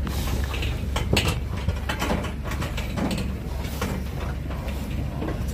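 Pigs shifting inside an aluminium livestock trailer, with sharp knocks and rattles of the metal walls, over a steady low hum.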